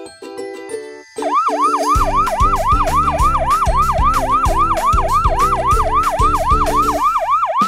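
Fire truck siren in fast yelp mode, its pitch sweeping up and down about three times a second. It starts about a second in, over light children's music with a beat.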